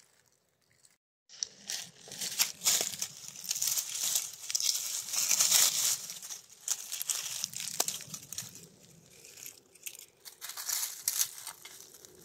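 Dry fallen leaves crackling and rustling as someone moves through the leaf litter and reaches down to pick chanterelle mushrooms, starting about a second in, with many small irregular crackles.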